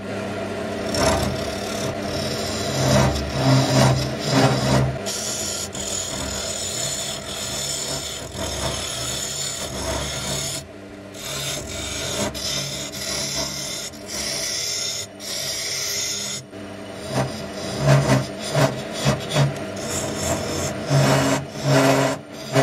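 Wood lathe running while a hand-held turning tool cuts the end grain of a spinning log blank: a steady motor hum under a continuous scraping cut, broken by a few short pauses where the tool comes off the wood and with louder bursts of cutting near the end.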